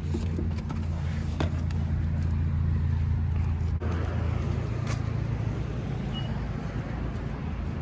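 A car's engine and road noise: a steady low hum with a few light clicks.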